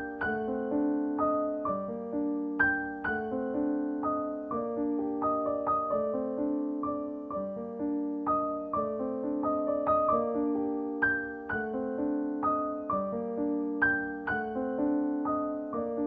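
Background piano music: a gentle, unhurried run of single struck notes over sustained lower notes, with a steady pulse.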